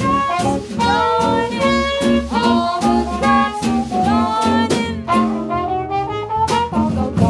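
Swing jazz band playing an instrumental passage: trumpet melody with bent notes over gypsy-jazz guitar, double bass and drums, with a loud accent just before the end.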